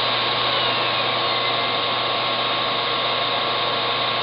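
Steady hiss with a faint steady tone and a low hum running under it, unchanging throughout.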